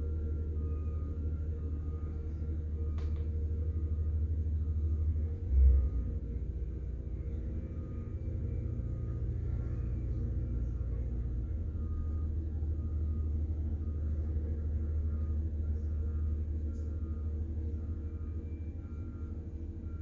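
Asphalt roller's engine running with a steady low rumble, its note shifting for a few seconds partway through. There is a single thump about five and a half seconds in, and faint repeating beeps throughout.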